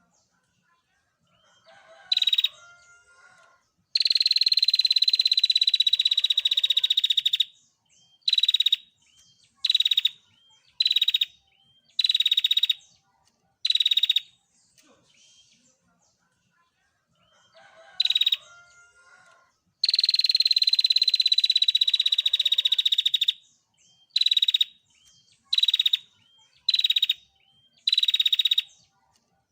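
Female prinia (prenjak) giving its rapid, buzzing trill call: one long trill of about three and a half seconds, then a string of short trills about a second and a half apart. The whole sequence comes round again about halfway through.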